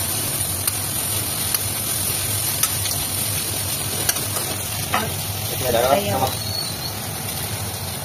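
Sliced vegetables (cabbage, carrot, onion and capsicum) stir-frying in hot oil in a kadhai, with a steady sizzle. A metal spatula scrapes and clicks against the pan now and then.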